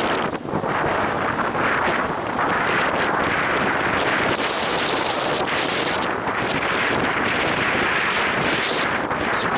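Strong wind buffeting the microphone: a loud, steady rushing roar that swells and eases slightly.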